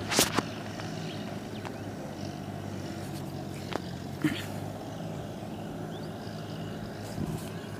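Low steady background hum with a light noise haze, broken by a few faint clicks: one just after the start, two about four seconds in, and one near the end.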